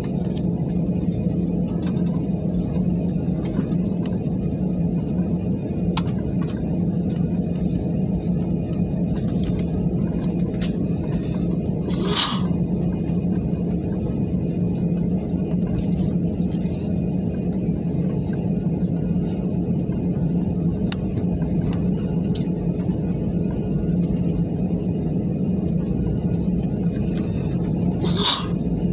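Steady rumble and low hum of an Airbus A320-family airliner's engines at taxi power, heard inside the cabin as the plane taxis after landing. Two short hisses stand out, one about twelve seconds in and one near the end.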